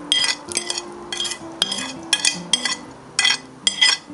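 A metal spoon scraping salt and sugar off a plate into a pot of water, in short strokes about two a second.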